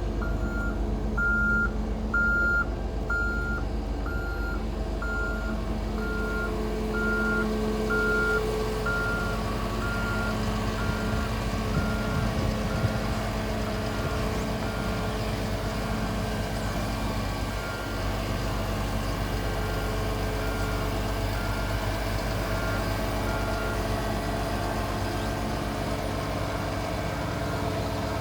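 A Volvo P7110 tracked asphalt paver's D8H diesel engine running steadily, with a backup alarm beeping a little more than once a second. The beeps grow fainter through the second half.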